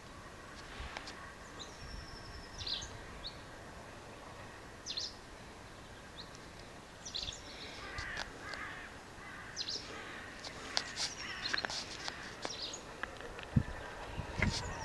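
Wild birds calling faintly: short high chirps and calls every second or two over quiet outdoor background, with a few soft knocks near the end.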